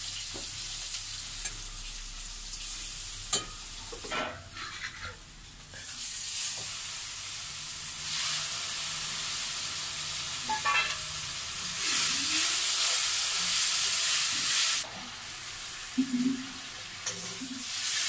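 Hot oil sizzling and frying in an iron wok over a wood fire, with a few sharp metal clinks of a utensil three or four seconds in. The sizzle swells to its loudest about twelve seconds in and drops off sharply about three seconds later.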